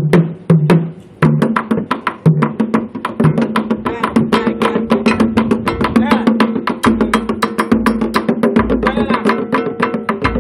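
An ensemble of carved wooden barrel drums with pegged, rope-tensioned heads, played with sticks and bare hands in a fast, interlocking rhythm of sharp strokes. A few loud strokes open it, and after a brief dip about a second in the full rhythm sets in and runs on steadily, with a deeper drum tone joining in the second half.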